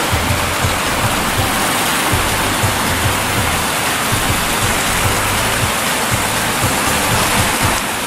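Spring water pouring over the notched rim of a circular concrete diversion weir into the channels below: a steady rush of cascading water that cuts off shortly before the end. Background music with a low, pulsing beat plays underneath.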